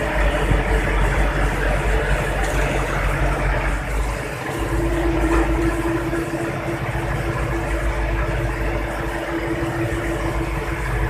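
Vessel's engine running steadily with a low drone; a steady humming tone joins in about four and a half seconds in.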